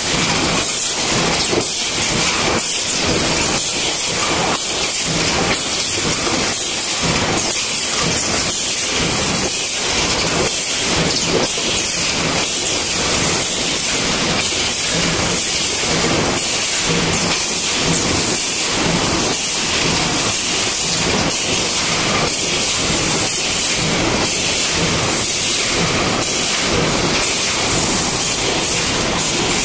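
Tin can production line machinery running: a rapid, regular mechanical clatter of about three strokes a second over a constant steady hiss.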